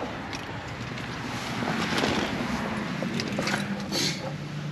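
Rustling and wind on the microphone as someone climbs into a car's driver's seat. About four seconds in, the 2012 GMC Terrain's engine starts and settles into a steady, quiet idle.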